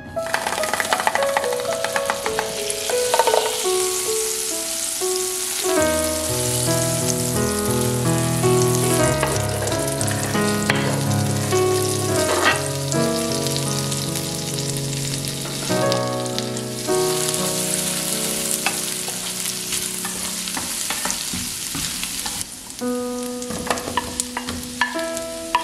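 Butter and minced garlic sizzling and bubbling in a nonstick frying pan, with potato cubes tipped in near the end. Piano music plays over it.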